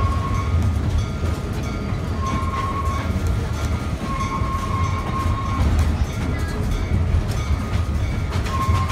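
Passenger train cars rolling on the rails, heard from an open-air coach: a steady low rumble, with a thin high tone that comes and goes a few times and scattered clicks.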